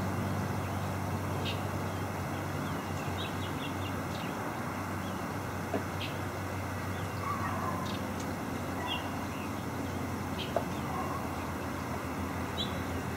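Outdoor evening ambience: a steady low hum of distant traffic, with small birds giving short, scattered chirps throughout.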